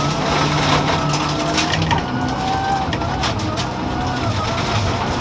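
Mitsubishi Lancer Evolution X rally car's turbocharged four-cylinder engine heard from inside the cabin, pulling hard on a gravel stage, its note rising and dipping a few times as the throttle and gears change. Gravel clatters against the car with scattered sharp clicks.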